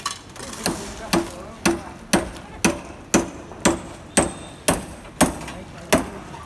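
Hammer blows struck steadily, about two a second.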